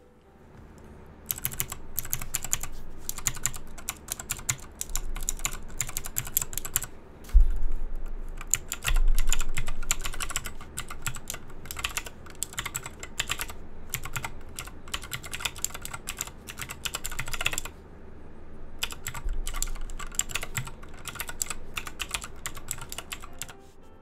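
Fast typing on an ID75 mechanical keyboard with clicky Gateron Green switches: a dense run of sharp key clicks starting about a second in, broken by two short pauses, about seven and eighteen seconds in. Two dull low thuds sound early in the second run.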